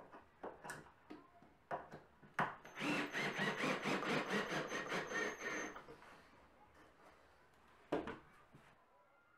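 Ryobi 18V cordless drill driving a screw into pine framing for about three seconds, its motor whining over rapid ticking, after a few light knocks of handling. Near the end a single knock as the drill is set down on the wooden frame.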